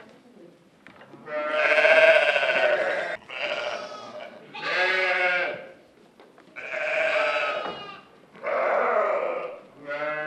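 Sheep bleating over and over: about five long, wavering bleats, one after another with short pauses between them.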